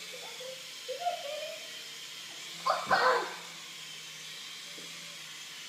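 Small electric motors of a SYMA S102G toy RC helicopter's coaxial rotors whirring steadily as it hovers. There is a short loud vocal cry about three seconds in.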